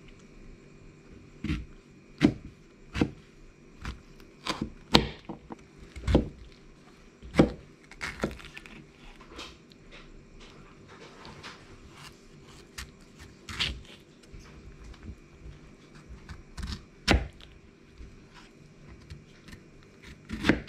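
Folding knife cutting a pineapple on a wooden cutting board: irregular sharp knocks as the blade goes through the fruit and strikes the board. They come close together in the first eight seconds or so and are scattered after that.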